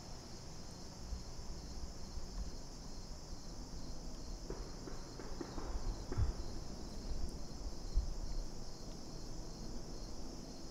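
Steady high chorus of insects droning in the woods, with a few soft low thumps and rustles a little past the middle.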